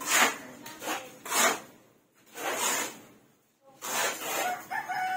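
Steel shovels scraping and grinding through sand and cement mortar on a concrete floor, in repeated rough strokes, as the mortar is mixed by hand for plastering.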